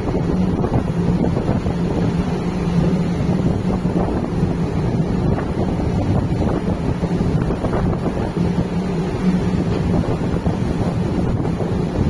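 Wind buffeting the microphone over the steady rush of sea water foaming along a cargo ship's hull, with a steady low hum underneath.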